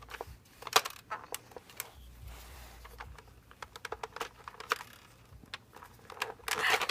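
Irregular plastic clicks and rattles of foam Nerf darts being pushed one by one into a spring-loaded blaster magazine, with a louder cluster of clicks near the end.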